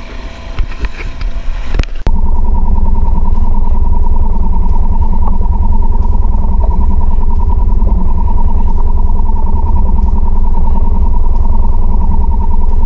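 About two seconds in, quieter background noise cuts abruptly to a Mercury 3.5 hp outboard motor running steadily at constant speed, loud and close.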